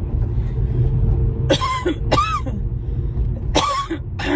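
Four short coughs in two pairs, about a second and a half in and again near the end, over the steady low rumble of a car driving.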